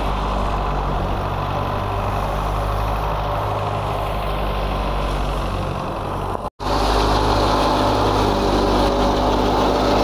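A tractor engine running steadily to drive a wheat thresher, a constant low drone. The sound breaks off for an instant about two-thirds of the way in, then comes back louder with more rushing hiss from the thresher up close.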